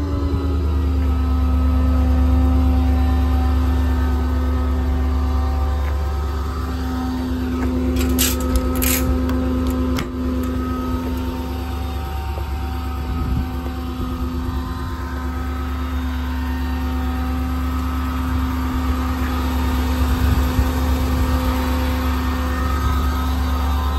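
Ford 7.3-litre gas V8 of a heavy-duty truck idling steadily, a deep even hum with a constant drone above it. A few brief high clicks come about eight seconds in.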